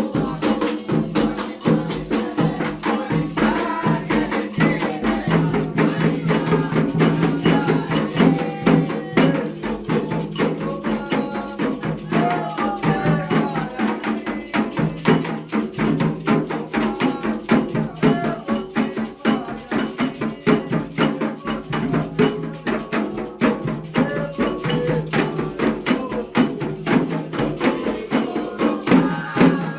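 Afro-Brazilian ritual music of a Candomblé ceremony for Xangô: fast, steady drumming and other percussion with voices singing over it.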